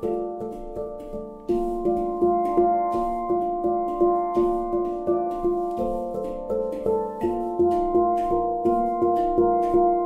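Several handpans played with soft felt mallets and a bare hand: overlapping ringing, pitched notes in a steady rhythm of about three strokes a second, stepping up in loudness about one and a half seconds in.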